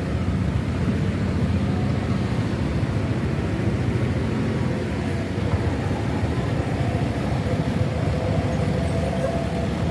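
Buses driving past, a steady low engine and road rumble.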